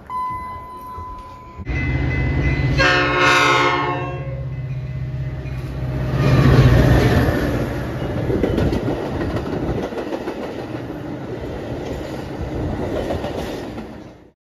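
An elevator chime rings briefly as a single steady tone. A train then rumbles in, and its locomotive horn sounds once about three seconds in for roughly a second. The steady rushing noise of the passing train follows.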